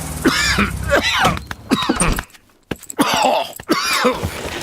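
A cartoon bear character, voice-acted, groaning and coughing in a string of vocal outbursts, the sounds of a character ill with a cough.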